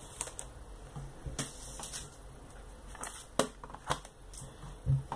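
Plastic CD jewel case handled and turned over on a tabletop: a scatter of sharp clicks and taps, with a duller thump near the end.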